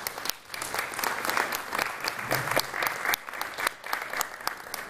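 Audience applauding, many sharp claps over a dense patter.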